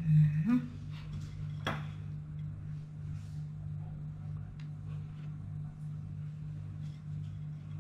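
Steady low electrical hum, with a few light clicks and taps as pistachio pieces are set by hand onto a slate serving board. One sharper click comes a little under two seconds in.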